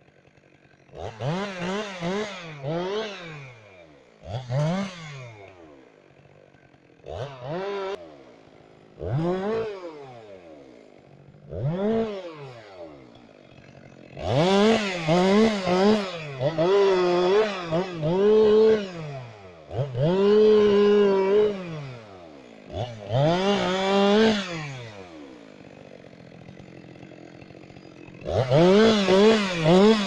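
Chainsaw revving up for a series of cuts into a fallen tree, about a dozen in all, dropping back to idle between each. The cuts are short and quick at first, and longer, held cuts come about halfway through and again at the end.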